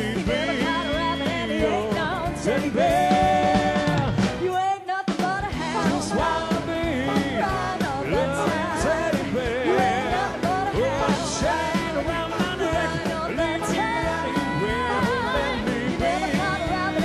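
Live rock-and-roll band, with piano, electric guitars and drums, playing under singers. There is a short break in the music about four and a half seconds in, then the band and singing carry on.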